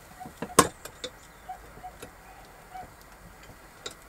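Clicks and one sharp metallic clack, a little over half a second in, as a Ridge Monkey clamshell sandwich toaster pan is handled on a gas hob. There are a few short, faint squeaky tones in between.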